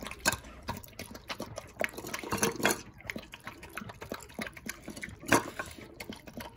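Jindo dog eating broth-soaked shredded chicken from a bowl: irregular wet lapping and slurping with chewing smacks, the loudest one about five seconds in.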